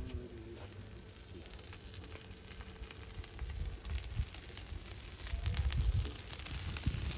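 Lamb frying in a pan, sizzling with a fine crackle that grows louder over the last couple of seconds. There are a few low bumps along the way.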